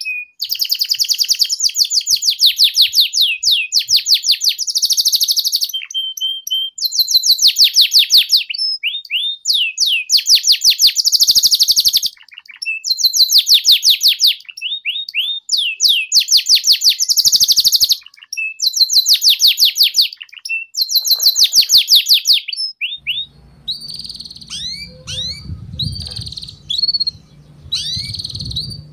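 Domestic canary singing in rapid, rolling 'ngeriwik' trills: bouts of a second or two of fast-repeated high notes, with short breaks between them. For the last few seconds the song turns to softer, separate chirps over a low rumble.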